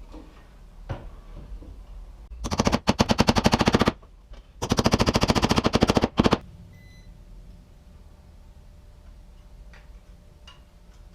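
Impact driver hammering a screw home in two bursts of rapid, even impacts, each about one and a half seconds long, with a short pause between them.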